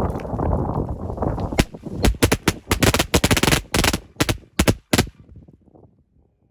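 Small firework going off: a hissing spray fading out, then a rapid run of sharp pops and cracks for about three seconds that stops suddenly.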